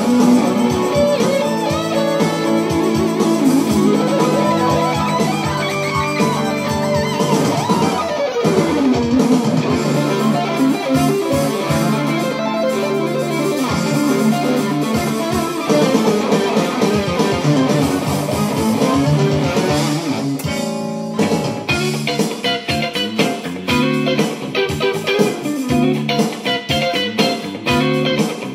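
Electric guitar played through a Hughes & Kettner amplifier: fast lead runs and phrases, turning to quick, choppy picked notes in the last several seconds.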